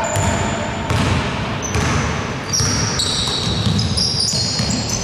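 Basketball dribbled on a hardwood gym floor, bouncing over and over, with short high squeaks of sneakers on the floor from about halfway through.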